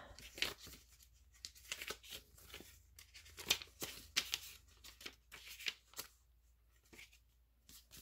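Paper pages of a small handmade booklet being turned and handled by hand: irregular soft rustles and flutters of paper, several a second, with a short lull near the end.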